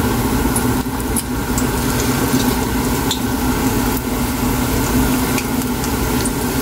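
Churro-dough-coated hot dogs deep-frying in hot oil: a steady sizzle with scattered small crackling pops. A steady low hum runs underneath.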